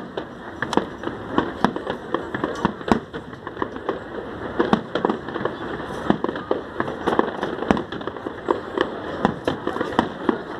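Fireworks display: a dense, irregular string of sharp bangs and pops, several a second, over a constant rumble and hiss.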